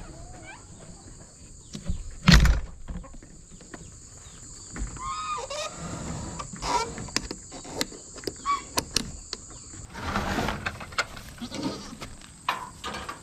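Nigerian Dwarf goats bleating a few times in short calls, among several sharp knocks, the loudest a thump about two seconds in.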